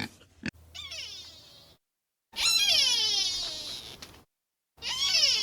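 Three drawn-out, high animal cries, each wavering and falling in pitch, cut apart by brief gaps of dead silence, after two short grunts at the very start.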